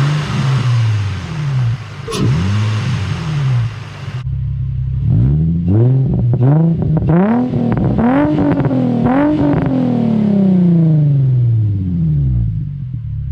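Infiniti G35's VQ-series 3.5-litre V6, fitted with a Z1 carbon-fibre intake tube, plenum spacer, 75 mm throttle body and Z1 muffler with an 18-inch Vibrant resonator, being revved in short blips. The sound changes abruptly about four seconds in, with a lot of hiss before it; after that comes a quick series of blips climbing higher, then one long rev falling back to idle.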